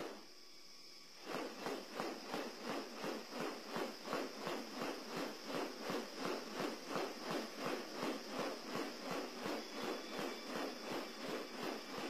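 Male superb bird-of-paradise in courtship display, making a steady rhythm of short noisy pulses, about three a second, that begins about a second in.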